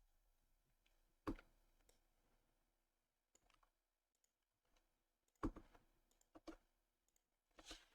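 A few scattered computer keyboard keystrokes over near silence: a single click a little over a second in, a short cluster of clicks around the middle, and another click near the end.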